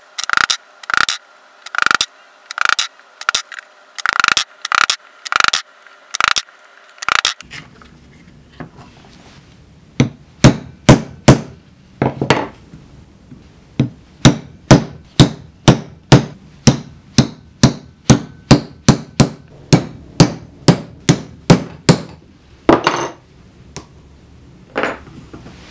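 Leather punching tools struck repeatedly through thick leather resting on the anvil of a bench vise, punching stitch holes: first a single pointed punch, then a multi-prong pricking iron. About ten steady blows come first, roughly one and a half a second, with a ringing metal tone. After a short pause a longer, faster run of blows follows, about two to three a second, with two lone blows near the end.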